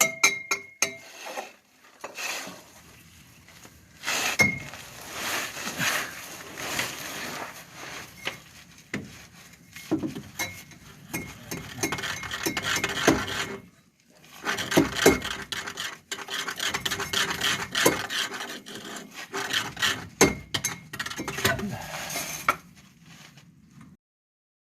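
A hand tool rubbing and rasping on metal, in two long spells with scattered clinks and knocks.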